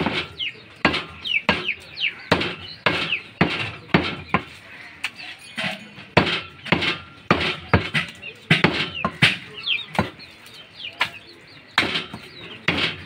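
Butcher's cleaver chopping beef on a wooden tree-trunk block: repeated sharp chops, about two a second at an uneven pace.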